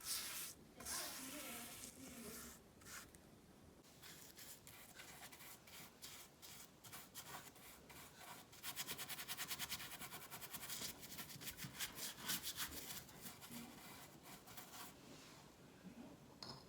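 Paintbrush strokes brushing hardwax oil onto rough pallet wood, a faint scratchy swishing with each stroke, quickening into a run of rapid short strokes past the middle.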